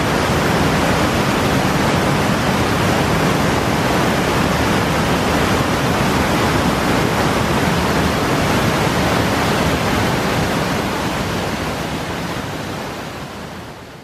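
Cascading waterfall: water rushing steadily over rock ledges, fading out over the last few seconds.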